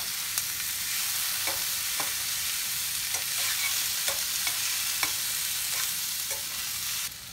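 Boiled green banana cubes and onions sizzling in oil in a stainless steel pan, stirred with a metal spoon that taps and scrapes against the pan now and then. The sizzle drops away suddenly near the end.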